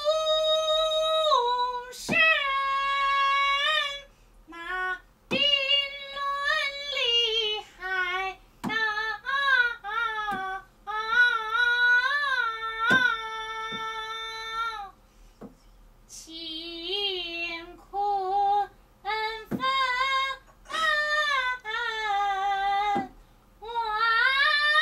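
A woman singing a Peking opera aria unaccompanied in a high voice, in long held notes that slide and waver, broken into phrases with short pauses. A few sharp clicks fall between the phrases.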